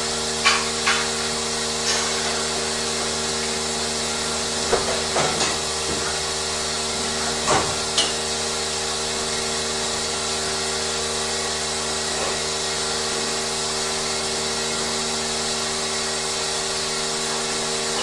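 Milking parlour machinery running with a steady hum and hiss, with a few sharp metallic knocks and clanks in the first eight seconds or so.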